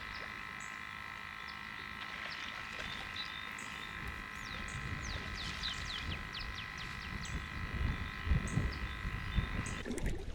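A steady, high-pitched chorus of calling frogs, layered into several unbroken tones. Quick falling chirps come through in the middle, and low rumbling handling noise rises near the end.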